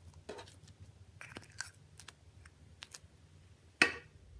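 Icing slime being worked by hand, giving scattered small clicks and pops, with one louder pop near the end.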